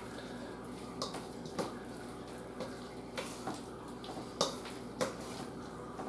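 Metal spoon stirring a thick chicken and mascarpone mixture in a copper mixing bowl, with soft scrapes and light irregular clinks against the bowl about once a second.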